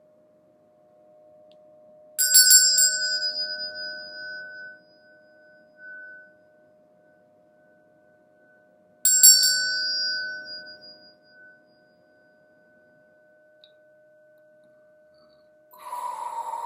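A small metal bell or chime is struck in a quick flurry of hits and rings out bright and high, fading over a few seconds; this happens twice, about seven seconds apart. A faint steady low tone hums underneath, and a short rustling sound comes near the end.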